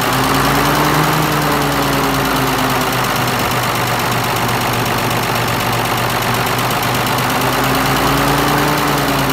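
The V engine of an old, rusty Mercedes-Benz truck idling steadily, its pitch wavering only slightly.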